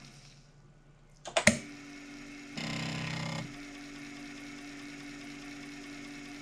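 Floppy disk drive running with a steady hum. About one and a half seconds in, the head-load mechanism pops down with a loud double click. A second later there is a short buzz, just under a second long, as the drive starts reading the disc.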